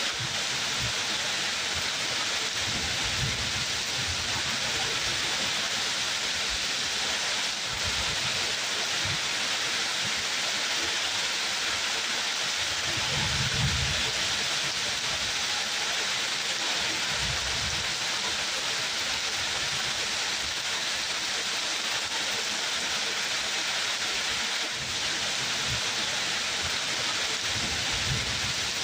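Steady heavy rain falling, an even hiss, with soft low rumbles coming and going, the strongest about halfway through.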